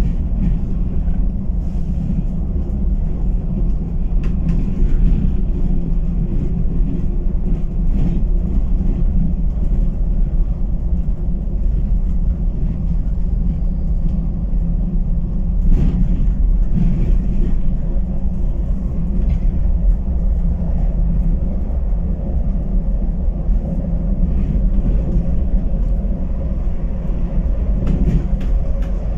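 Cabin sound of a 2022 Irizar i8 coach on a Scania chassis underway on a winding road: a steady low drone of engine and road noise heard from the driver's seat, with a few faint clicks now and then.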